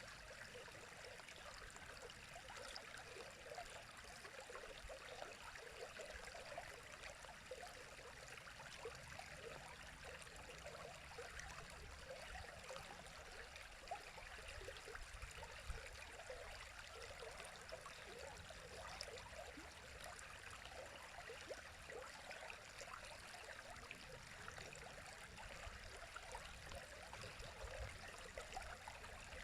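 A river's water flowing: a faint, steady, even rush that keeps on without change.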